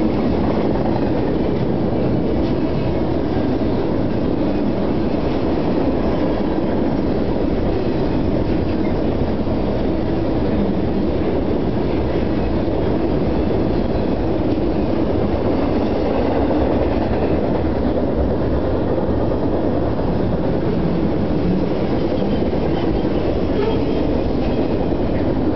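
Intermodal freight cars, trailer-carrying flatcars and double-stack container cars, rolling past at speed: a steady noise of steel wheels on the rails.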